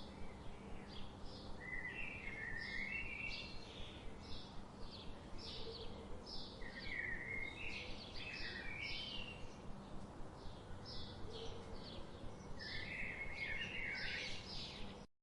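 Several birds chirping in a dense chorus of short, rapid, repeated calls over a steady low background hum; the sound cuts off abruptly near the end.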